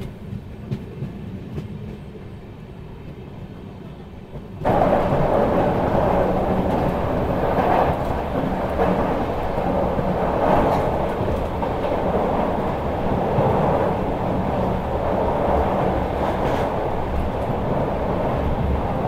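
Kulik Express passenger train running along the track, its wheels rumbling on the rails with occasional clacks. The steady rumble jumps suddenly louder about five seconds in.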